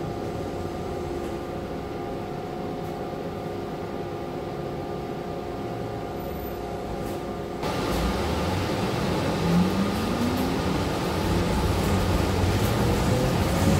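City bus interior: the engine idles with a steady hum and whirring fans while the bus stands at a stop. A little past halfway it pulls away, the noise gets suddenly louder, and a drivetrain whine climbs in pitch as it accelerates.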